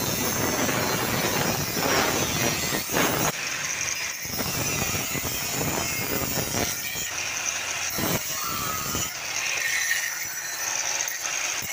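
Electric angle grinder with a thin abrasive cut-off disc cutting through a stainless steel tube. The loud, steady grinding noise breaks briefly a few times as the disc is eased off and set back into the cut.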